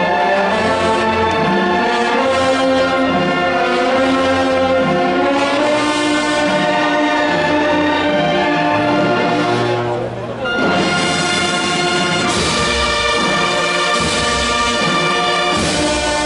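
Brass band playing a slow march in held chords. It breaks off briefly about ten seconds in, then comes back fuller, with low bass notes.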